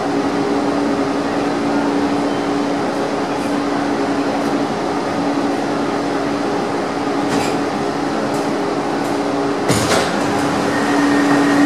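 Metro train running, heard from inside the carriage: a steady rumble with a constant hum throughout. A single sharp knock comes near the end.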